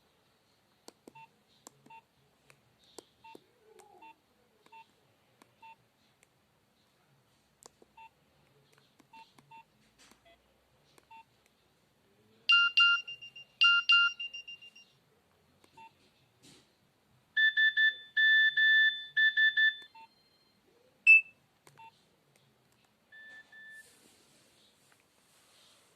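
Nokia 2760 phone key beeps, faint and irregular as the menus are stepped through, then the phone's alert tones playing from its speaker. Two bright ringing chimes come about a second apart, then a run of quick beeps in three bursts, then a single short chirp.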